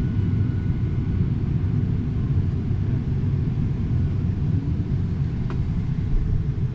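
Steady low rumble inside an airliner cabin, with one faint click about five and a half seconds in.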